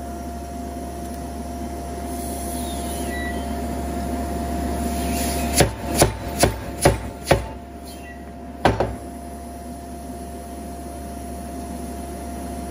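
Steam hammer striking a hot steel billet, over a steady low hum and a hiss. About halfway in it lands five quick blows, a little over two a second, then one more blow about a second later.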